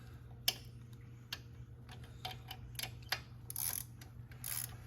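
Scattered sharp metal clicks and short scrapes of hand tools and parts being handled during an engine teardown, about one click a second at first, over a steady low hum.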